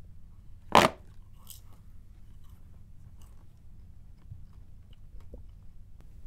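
A single short, sharp crunching hit a little under a second in, followed by faint scattered clicks and rustles over a low hum.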